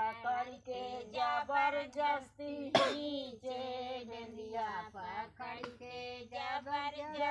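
Women singing a sohar, a traditional folk song sung to celebrate a child's birth, voices alone without instruments. A cough breaks in sharply about three seconds in.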